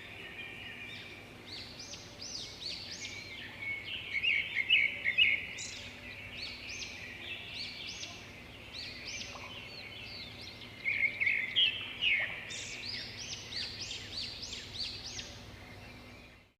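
Several small birds chirping and twittering in a dense, overlapping chorus of quick high notes, with louder bursts about four seconds in and again near eleven seconds. The sound cuts off suddenly at the end.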